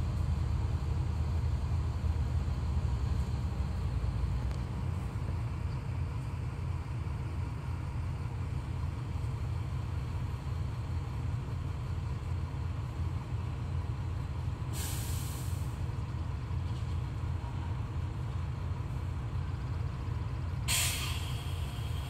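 Hino concrete mixer truck's diesel engine running steadily at low speed as the truck creeps forward, with two sharp air-brake hisses, one about 15 seconds in and another near the end as it stops.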